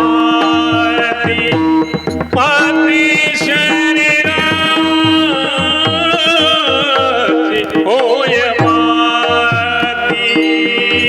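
Marathi kirtan chal: a devotional melody sung with ornamented, wavering pitch over a steady held drone and a regular hand-drum rhythm.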